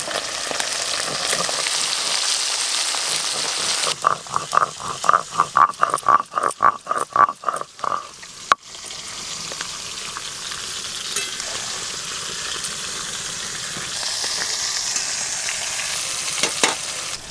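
Whole bata fish sizzling in hot oil in a karai. About four seconds in, a stone grinding pestle (nora) is rolled back and forth on a flat grinding stone (sil), about four strokes a second for some four seconds, grinding cashews and char magaz. The sizzling hiss comes back near the end.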